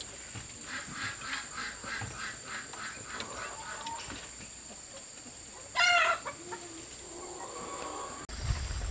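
Chickens clucking in a quick run of short calls, then a single loud squawk about six seconds in, over a steady high whine.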